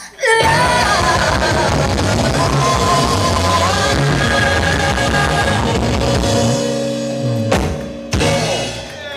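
Live alternative rock band playing: electric guitars, bass and drum kit with a woman singing. The band comes in abruptly just after the start, and the music cuts out twice briefly near the end.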